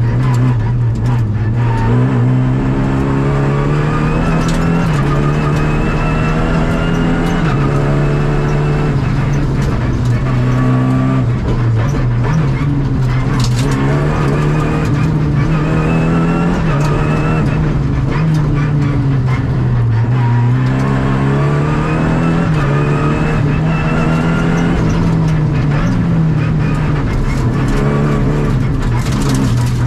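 Rally car engine heard from inside the cockpit, driven hard on a special stage: the note climbs again and again under acceleration and drops back at each gear change or lift, over steady road and tyre noise.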